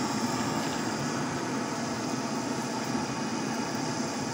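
Charcoal forge fire under a forced air blast, a steady rushing roar as the kored blades heat for hardening.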